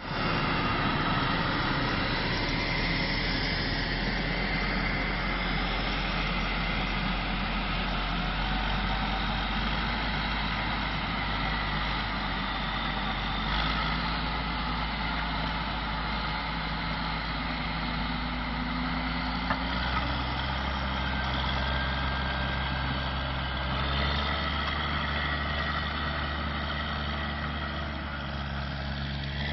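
Big farm tractor diesel engines running steadily under load in the field: a JCB Fastrac pulling a Claydon drill, then an articulated Kirovets pulling a Quivogne disc harrow through the soil. The engine note shifts slightly a couple of times.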